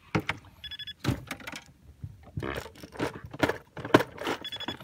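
A fishing reel being cranked by hand and tackle handled on a small boat: irregular clicks, knocks and scrapes. Two short, high ringing chirps sound about a second in and again near the end.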